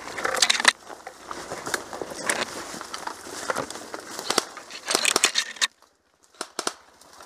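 Irregular crackling and rustling of brush and twigs, as of someone pushing through undergrowth, loudest in a burst just after the start, with a brief quiet gap a little past the middle.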